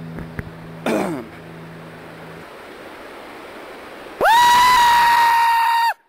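A man's imitation bear call: a short falling groan about a second in, then a loud, high, held scream of nearly two seconds that cuts off abruptly. The rush of a stream runs underneath.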